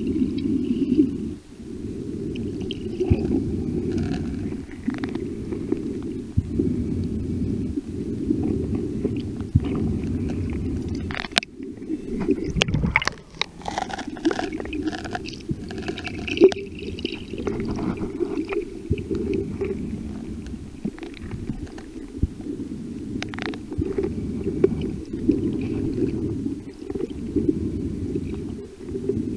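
Muffled underwater rumble and water movement around a submerged camera, with scattered faint clicks and crackles.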